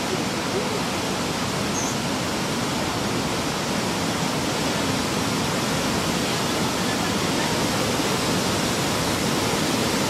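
Steady roar of turbulent, foaming surf from a tsunami surge rolling in to the beach, growing slightly louder toward the end.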